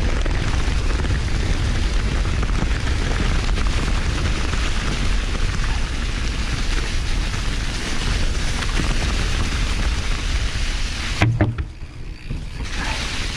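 Wind rumbling on the camera microphone and a Canyon Lux Trail full-suspension mountain bike's tyres rolling over dry fallen leaves on a forest trail, as a steady loud rush. About eleven seconds in there is a short knock, and the noise drops for a second or so before picking up again.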